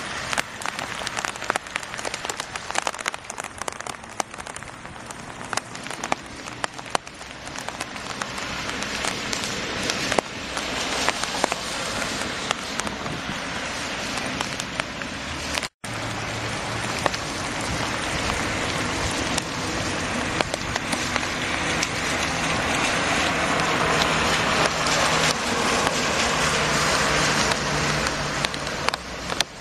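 Heavy rain pouring onto a flooded street and water-filled gutter: a dense steady hiss full of pattering drops that grows louder toward the end. The sound breaks off for an instant a little past halfway, and a low steady hum sits under the rain in the second half.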